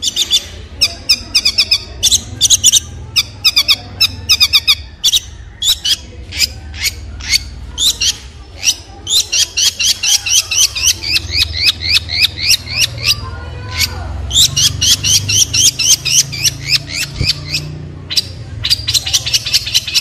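Caged long-tailed shrike singing: long runs of rapid, repeated high notes, several a second, broken by short pauses, over a steady low hum.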